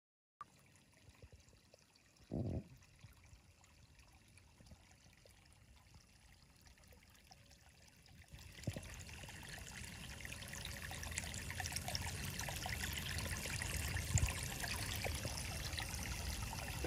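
Water trickling and splashing, faint at first and growing louder about eight seconds in, with one short low thump about two and a half seconds in.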